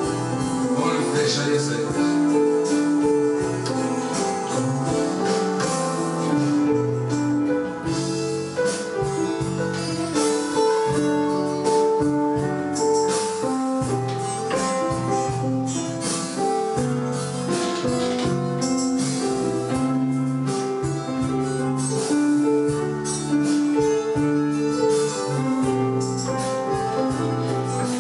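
Instrumental keyboard music: chords and a melody line played on a Roland arranger keyboard and a digital piano, the notes and chords changing every second or so.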